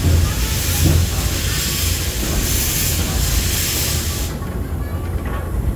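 A 1914 8620-class steam locomotive releasing steam with a loud hiss that cuts off sharply about four seconds in, over the low rumble of the train rolling on the rails.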